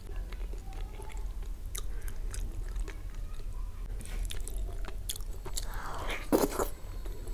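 Close-miked chewing and wet mouth noises of a person eating soft rice and curry by hand. A louder mouthful is taken about six seconds in.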